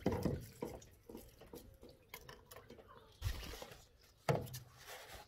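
Handling noise as a fish is brought in with a landing net: rustling and knocking from the net and its aluminium pole, with two dull thumps about three and four seconds in.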